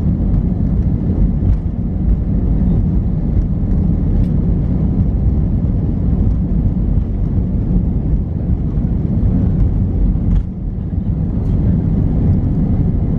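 Airbus A320 cabin noise on the takeoff roll, heard from a window seat over the wing: the engines at takeoff power and a steady rumble from the wheels on the runway. The noise dips briefly about ten seconds in, as the aircraft rotates.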